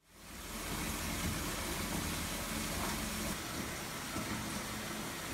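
A steady rushing noise with no distinct events, fading in at the start.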